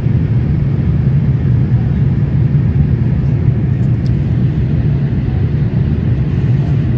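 Steady cabin noise inside a Boeing 787 airliner in flight: an even, loud low rumble of the engines and the airflow over the fuselage, heard from a window seat.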